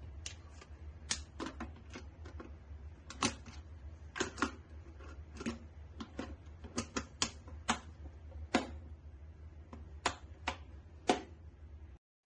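Irregular sharp plastic clicks and taps from a Joyoung Cony electric lunch box being handled, its lid and clip latches knocked and snapped, over a steady low hum.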